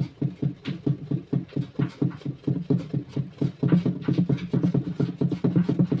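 A wooden stick stirring soapy water fast in circles in a plastic tub, making a quick rhythmic knocking and sloshing at about five or six beats a second.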